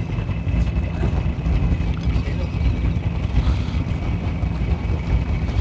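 Steady low rumble of wind buffeting the microphone on a small fishing boat at sea, over the boat's running noise, with a faint steady high-pitched whine underneath.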